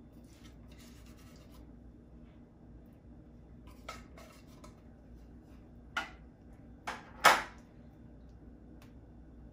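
Kitchenware handled on a counter: four sharp clicks and knocks, the last and loudest about seven seconds in, with faint rustling early on as flaked tuna is scattered by hand.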